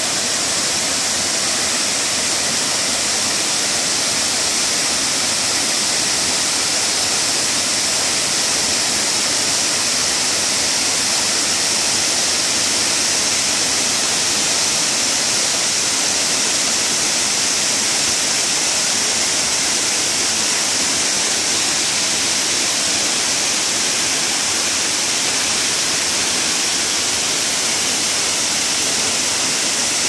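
Waterfall pouring over a rock ledge into a pool: a steady, loud rush of falling water with a bright hiss and no let-up.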